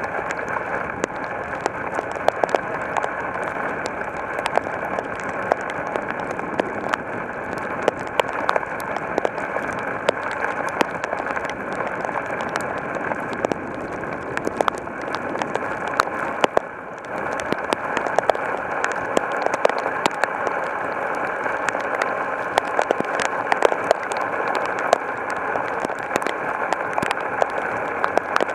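Heavy rain falling: a steady hiss dotted with many sharp drop impacts, easing briefly about two-thirds of the way through.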